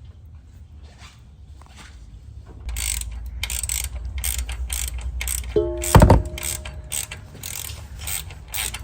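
Ratchet wrench clicking in quick, even strokes, joined by a low hum about a third of the way in. One loud metallic clang with a brief ring comes about six seconds in.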